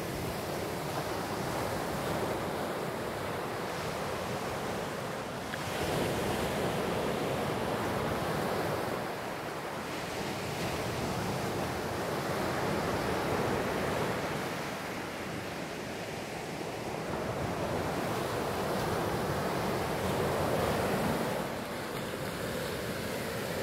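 Ocean surf: small waves breaking and washing up the sand, the noise swelling and easing every several seconds as each wave comes in, with wind on the microphone.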